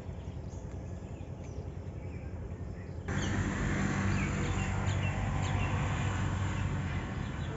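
Outdoor ambience: a steady low rumble with birds chirping now and then, growing louder about three seconds in.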